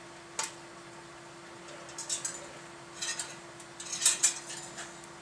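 Knocks and clatter of a heavy generator core with wooden end plates being tipped upright on a folding workbench. The sharp knocks come in scattered groups, loudest about four seconds in.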